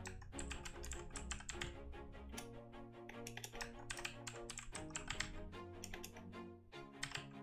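Rapid typing on a computer keyboard, a quick run of key clicks, over background music.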